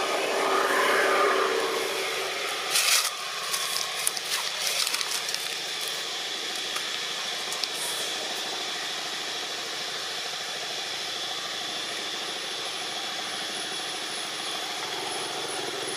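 Steady outdoor background noise with a motor running in the distance, a little louder in the first two seconds. A cluster of sharp clicks and scrapes comes about three to five seconds in, and a faint thin high tone joins near the end.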